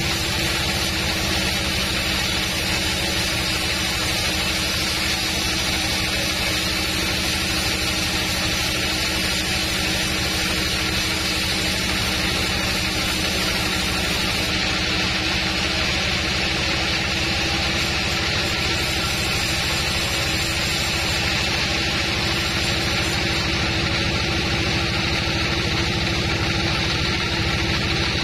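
Band sawmill running steadily as its blade cuts lengthwise through an old, stone-hard buried teak log: a constant, unbroken machine drone with a steady hum.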